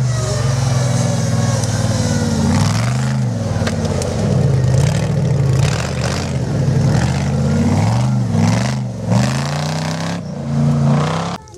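Off-road 4x4's engine revving up and down repeatedly, with scattered knocks and scrapes; it cuts off suddenly near the end.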